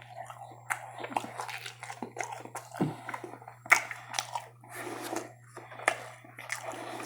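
A person chewing and biting food close to the microphone: irregular short clicks and wet smacks, over a faint steady low hum.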